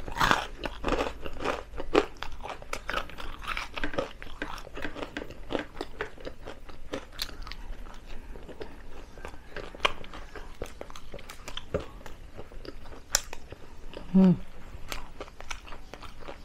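Close-up chewing and crunching of crispy deep-fried chicken feet, bones and all: a dense, irregular run of sharp crunches and mouth sounds. A short voice sound comes about 14 seconds in.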